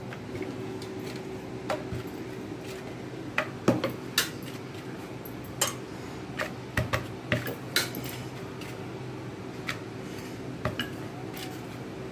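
Light clicks and knocks of kitchenware against a steel flour bowl and a wooden rolling board, as chapati dough is dusted with wheat flour and rolled out again, over a steady low hum. The sharpest knocks come about four seconds in.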